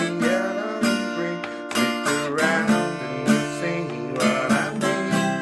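Acoustic guitar strummed through chords at a steady pulse in the pre-chorus pattern: down, down, miss, up, up.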